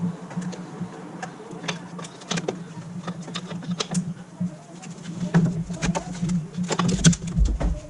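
Scattered clicks and knocks of hand tools on metal over a steady low hum, with a few heavier thuds near the end.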